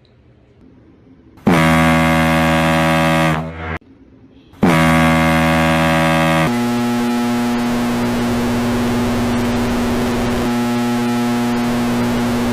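Two loud, distorted horn-like blasts of about two seconds each, the first sagging in pitch as it cuts off, then a steady held drone under a hiss, like a meme air-horn sound effect.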